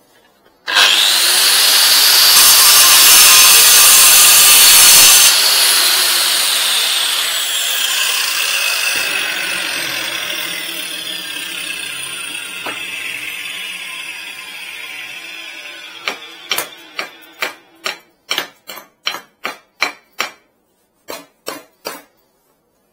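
Hikoki angle grinder switched on and run against a concrete paving slab for a few seconds, then switched off, its disc winding down with a slowly falling whine. Near the end, about a dozen sharp hammer blows, roughly two a second, as a claw hammer knocks at the slab.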